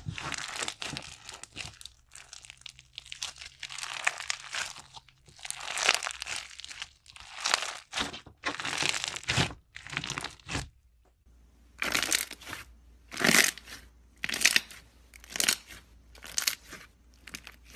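Slime being squeezed and pressed by hand, making crinkly, crackling squelches in irregular bursts. After a brief pause about two-thirds of the way through, the bursts become shorter and more separate.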